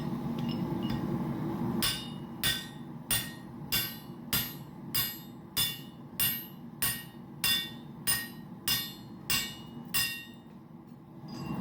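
Blacksmith's hammer striking a steel drift, driving it through the punched hole in a hot titanium bar on the anvil to open the hole wider: about fourteen steady, evenly spaced ringing metal blows, a little under two a second, after a low hum in the first two seconds.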